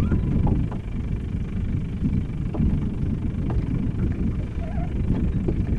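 Wind buffeting the microphone on an open boat, a steady low rumble, with a few faint ticks scattered through.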